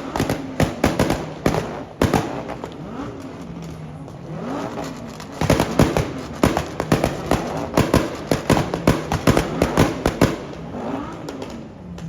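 Car engine revved hard several times through a loud performance exhaust, with rapid cracks and pops from the exhaust as the revs rise and fall, and idling in the gaps between.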